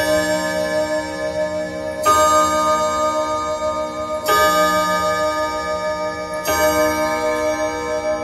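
Junghans three-train wall clock striking the hour on its gong rods: four blows in all, about two seconds apart, each ringing on into the next.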